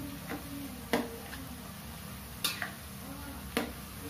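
Metal spoon clinking and scraping against a metal wok while a frying mixture is stirred: about five sharp clinks at irregular intervals, the loudest about a second in.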